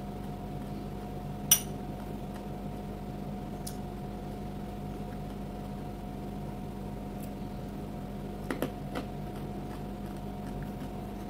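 A steady electrical hum with a faint hiss, broken by one sharp click about a second and a half in and a few softer clicks a little before the end.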